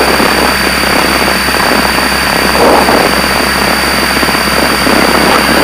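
Piper Seneca's twin piston engines and propellers heard inside the cockpit, a steady drone with rushing air noise, at slow-flight power during a descent.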